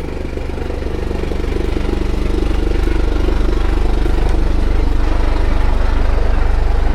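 A combustion engine running at a steady idle close by, with a fast, even low throb. It grows louder over the first two to three seconds, then holds steady.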